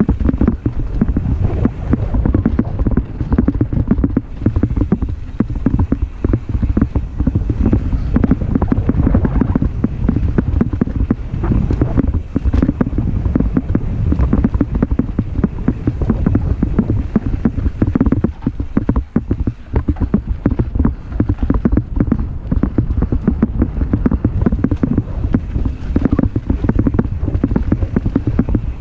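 Mountain bike riding fast down a dirt singletrack: heavy wind buffeting on the microphone over the rolling of knobby tyres on dirt, with frequent small knocks and rattles from the bike over rough ground.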